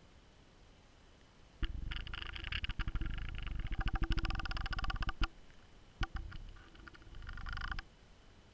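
Muffled rumbling and fast rattling clicks heard through a GoPro's waterproof housing underwater as it is lowered on a line, in two spells of a few seconds each.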